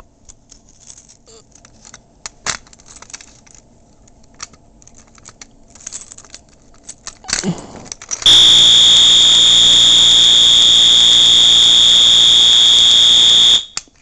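Light clicks and key jangling at a Simplex T-bar pull station, then about eight seconds in a Wheelock MT multitone horn sounds a loud, steady, high-pitched continuous horn tone for about five seconds and cuts off suddenly. It is set off through the pull station's key-operated fire drill mode, with the horn set to continuous horn.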